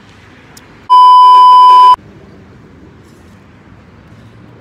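A loud, steady electronic bleep tone, about a second long, starting about a second in and cutting off sharply: the kind of censor bleep edited in over a word. The rest is faint background.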